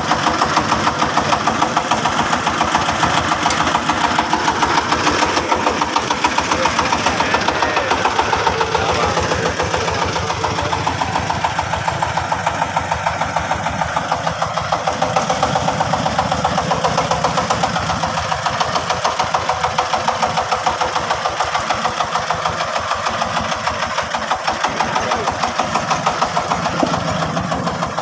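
Engine idling with a fast, even chugging beat that holds steady throughout.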